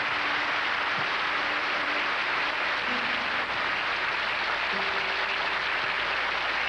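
Theatre audience applauding steadily, with faint held orchestral notes underneath.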